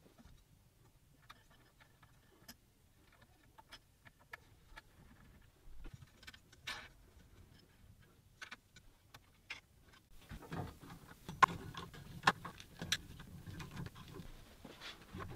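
Hands working on a WorkBee CNC's aluminium extrusion frame and lead-screw parts: faint, sparse metal clicks and taps. About ten seconds in the handling turns busier and louder, with sharper knocks over a low rumble.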